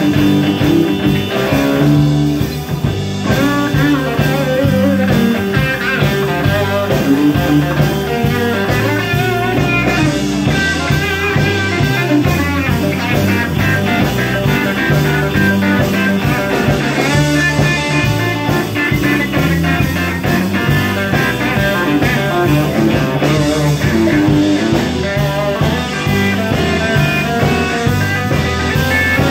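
Live blues-rock band playing an instrumental break: an electric guitar plays bending lead lines over drums and a steady low accompaniment.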